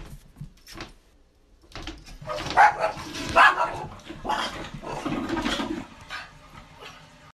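Small dog barking in a series of rough barks, starting about two seconds in and loudest over the first few.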